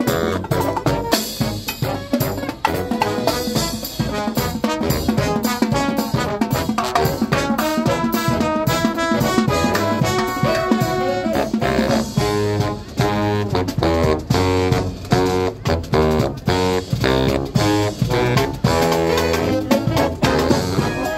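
Live marching band playing an upbeat tune, saxophones and brass over a steady drum beat. About halfway through the notes become short and clipped.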